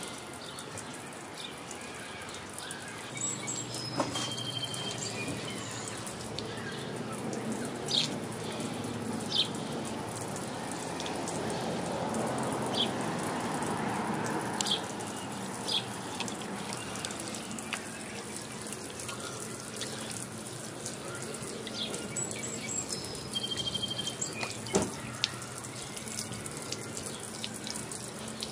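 Oscillating lawn sprinkler spraying water onto wet pavement: a steady hiss and patter that grows louder toward the middle and then drops back. A few short bird chirps sound over it.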